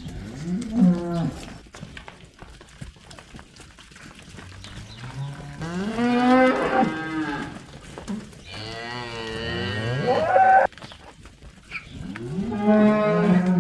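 Beef suckler cattle mooing: about four long calls one after another, some rising in pitch, from more than one animal.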